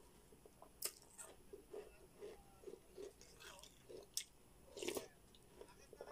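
A person chewing a spoonful of food from a bowl, soft munching about twice a second, with a few sharp clinks of a metal spoon against a ceramic bowl.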